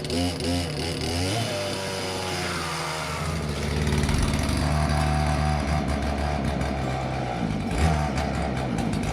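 Two-stroke petrol chainsaw engine: its pitch falls over the first couple of seconds as it comes off the throttle, then it runs steadily at a lower speed.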